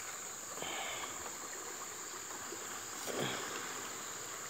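Steady rush of a swollen, fast-flowing river.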